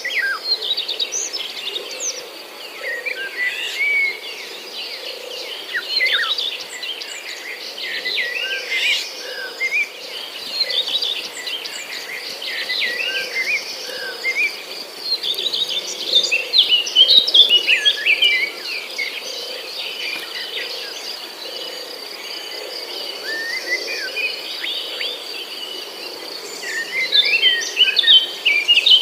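Many small birds chirping and twittering in quick, overlapping calls over a steady high insect trill. The chirping is busiest about halfway through and near the end.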